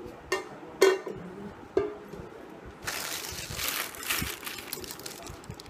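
The metal inner pot of a thermal rice cooker knocks three times against its outer pot with a short ring, then plastic packaging crinkles for about two seconds.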